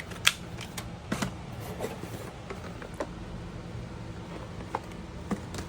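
Art supplies being handled: a few scattered light clicks and taps, the sharpest about a quarter second in, as small items such as watercolor paint tubes and their box are picked up and moved.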